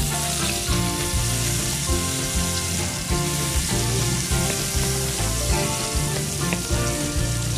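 Minced garlic sizzling in hot cooking oil in a metal wok, stirred with a wooden spatula.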